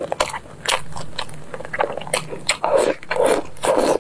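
Close-up chewing and lip smacking on a mouthful of braised pork knuckle, a run of short, irregular smacks that grow louder and closer together in the second half.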